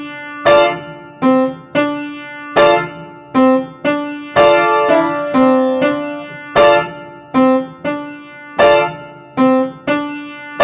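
Solo piano playing chords struck in a steady rhythm, each ringing and fading before the next.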